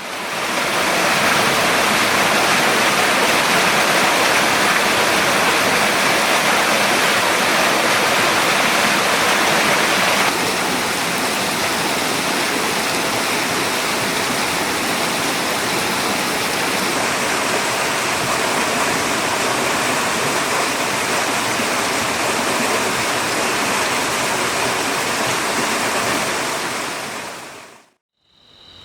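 Heavy rain falling steadily as a dense, even hiss. It drops a little in level about ten seconds in and fades out near the end.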